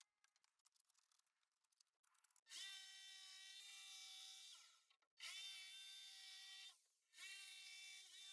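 Power drill running in three bursts of about two seconds each, holding a steady whine with short pauses between them, as used in building a wooden workbench.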